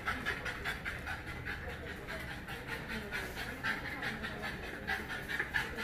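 French bulldog panting rapidly and evenly with her tongue out. It is the laboured panting of a mother dog in pain and fever after a caesarean section and spay.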